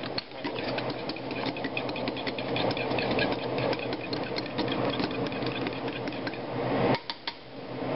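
Fork beating eggs in a cup: rapid, irregular clicking of the tines against the cup, pausing briefly near the end, over a steady low hum.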